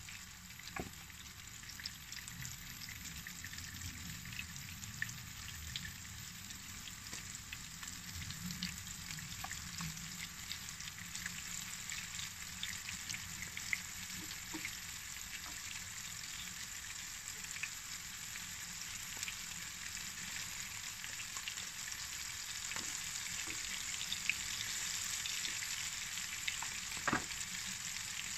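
Flour-dusted sardines frying in shallow oil in a pan: a steady sizzle full of fine crackles, with a few louder clicks. The sizzle grows a little louder in the last few seconds.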